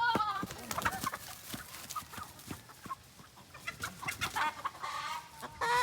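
Chickens clucking: many short, sharp clucks and brief calls, with a louder drawn-out call near the end.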